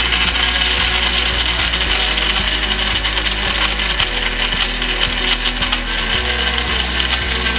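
Turbo countertop blender running steadily, its blades crushing ice cubes with water, coffee and sugar into a slush.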